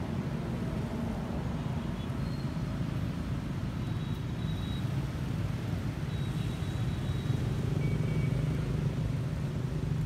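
Steady low background rumble, swelling a little about seven seconds in, with a few faint high chirps over it.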